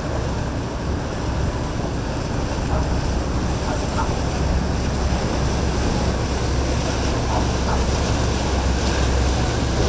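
Steady low rumble of boat engines mixed with wind on the microphone and the wash of waves, growing slightly louder.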